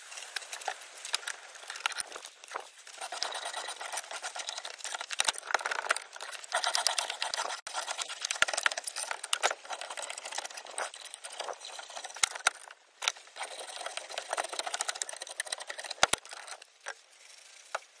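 Drawknife shaving the bark off a green hophornbeam stick clamped in a bench vise: repeated rough scraping strokes, each peeling off a shaving.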